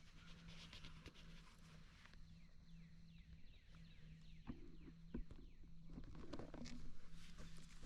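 Faint outdoor woodland ambience: many short, high chirps, with a few crunching steps or rustles past the middle.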